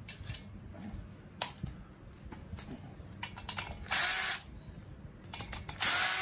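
Light metal clicks and taps of tools working on the cylinder head of a VW 1600cc dual-port engine, with two short, loud bursts of noise about half a second each, around four and six seconds in.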